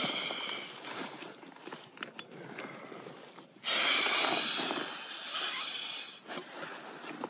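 Inflatable camping pillow being blown up by mouth: a long breath blown into its valve ends just after the start. After a pause of about three seconds comes a second long blow, lasting about two and a half seconds.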